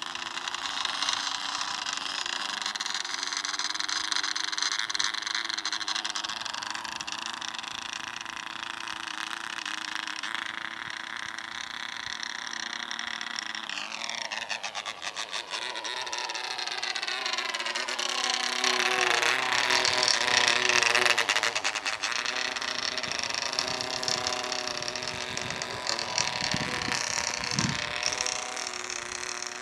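Radio-controlled model airplane's motor running with a steady whine, then flying: about 14 seconds in the pitch drops sharply, and it then swings up and down as the plane passes, loudest about 20 seconds in.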